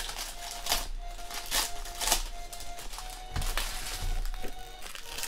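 Foil wrapper of a Prizm football card pack crinkling and tearing as it is ripped open, in several sharp crackles, with faint background music.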